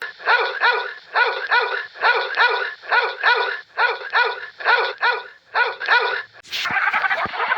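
A dog barking repeatedly in quick pairs of short, high barks, stopping about six seconds in, when a noisier, different sound takes over.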